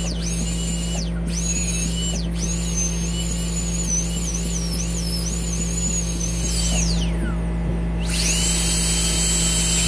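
High-speed dental handpiece whining as its bur cuts into a cat's tooth, the pitch wavering and dipping under load. It stops and restarts several times, winding down about seven seconds in and spinning back up a second later, over a steady low hum.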